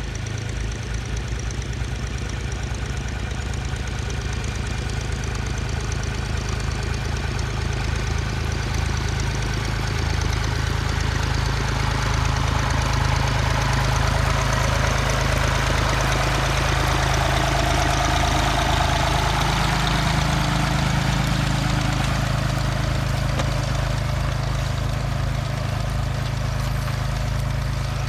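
Massey Ferguson 148 tractor's three-cylinder engine running steadily under load while ploughing, getting a little louder about ten seconds in.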